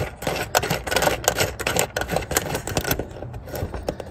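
Quick, irregular metal clicking as a hex bolt with a fender washer is driven into a rivet nut on an aluminium solar-panel bracket; the clicking stops about three seconds in.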